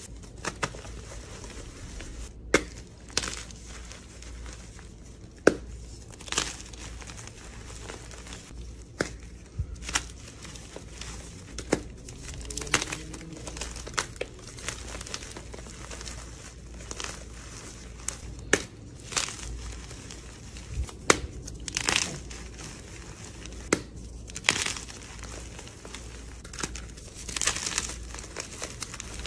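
Blocks of reformed gym chalk crunching and crumbling as hands squeeze and break them apart, with sharp irregular cracks every second or two.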